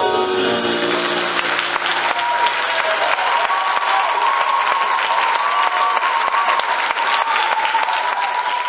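Audience applauding loudly as the last chord of the show's music dies away in the first seconds. From about two seconds in, a long wavering high tone sounds over the clapping.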